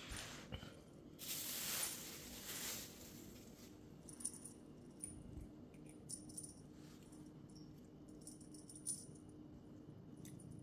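Small bell on a cat's new collar tinkling in short, irregular jingles as the cat moves. A louder rustling noise lasts for a couple of seconds near the start.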